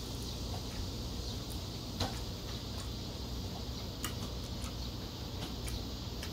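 Cooked shrimp shell being peeled off by hand: small scattered clicks and crackles. There is a sharper click about two seconds in and another about four seconds in, over a steady low hum.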